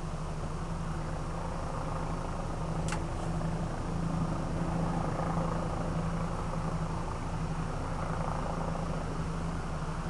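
Helicopter droning steadily with a rapid low pulsing, and a brief high falling whistle about three seconds in.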